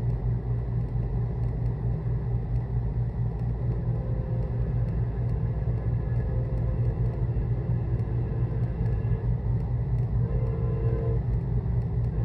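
Low, steady rumble of the diesel locomotives of an approaching Union Pacific freight train.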